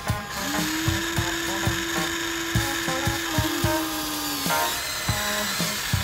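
Small electric motor of a Huina remote-control toy excavator whining steadily as the boom and bucket lower, stopping about four and a half seconds in. Background music with a steady beat plays throughout.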